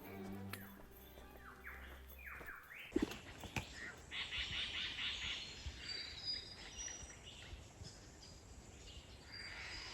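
Background string music fades out over the first few seconds, then forest bird song takes over: a superb lyrebird singing a run of mimicked calls, with high clear whistles and a rapid rattling chatter.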